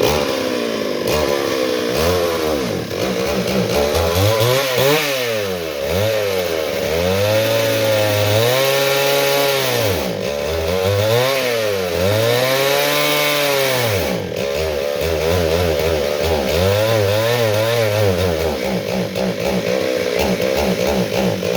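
Two-stroke chainsaw engine running loud, revved up and dropped back again and again for most of the stretch, then held at a steadier speed near the end.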